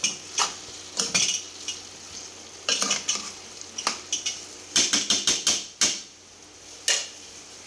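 Metal spoon scraping and clinking against the sides of a metal pot as bitter gourd masala is stirred, in irregular strokes that come fastest about five seconds in. A steady sizzle of the oil runs underneath.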